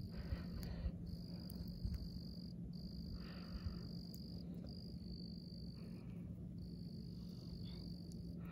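A high, steady insect trill that keeps breaking off briefly every second or two, over a low rumble of the phone being handled.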